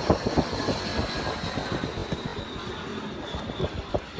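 Something spun by hand whirring with a rapid rattle of clicks that thins out as it slows, over a faint high whine that drops slightly in pitch.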